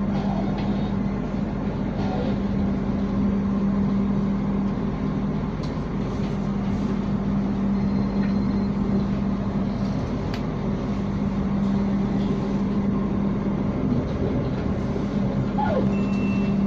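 Steady running noise of a passenger train heard from inside a coach: a constant rumble with a steady low hum underneath.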